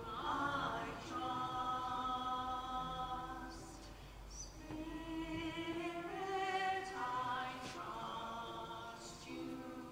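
A choir singing a slow hymn, several voices holding long notes.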